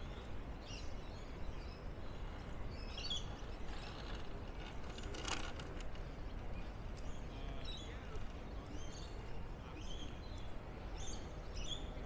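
Scattered short bird chirps over a steady low background rumble, with one brief sharp sound about five seconds in.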